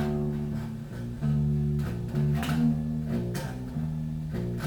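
Low guitar riff on held notes, changing pitch every half second to a second with a sharp attack at each change: a dark metal riff shaped like a dancehall bass line.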